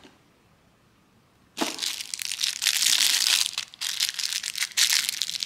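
Crinkling and scraping of hands handling packaging and screws against a cardboard box, starting abruptly about a second and a half in after a near-silent pause.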